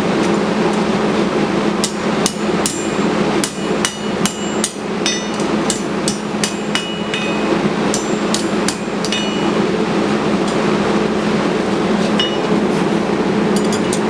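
Hammer blows ringing on a piece of coil spring steel as it is straightened. The strikes are irregular, come thick for several seconds, pause, then return as a few more near the end, over a steady drone.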